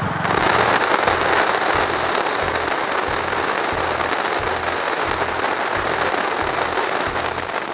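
Novelty 'duck' firecracker spraying sparks with a steady, loud fizzing hiss.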